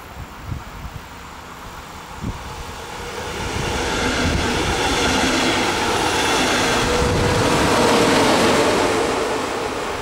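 A double-deck regional train pushed by a DB class 143 electric locomotive passing close by. Its wheel-on-rail rolling noise builds from about three seconds in, is loudest around eight seconds, and eases off as the locomotive goes by.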